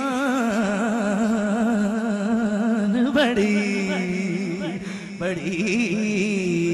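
A man singing a naat, an Urdu devotional poem in praise of the Prophet, drawing out long melismatic notes with a strong wavering vibrato.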